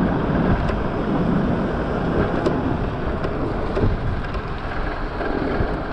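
A steady rush of wind over the microphone of a moving electric bike, with a low rumble from the road.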